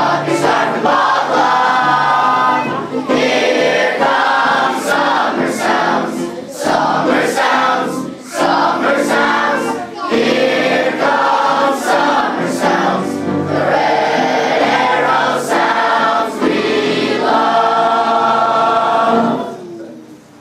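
A chorus of boys' voices singing a song together with musical backing, the song ending near the end.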